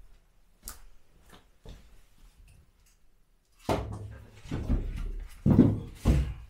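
Dry wooden logs knocking and clunking as they are shifted and lifted. There are faint clicks at first, then a run of heavy knocks from about three and a half seconds in.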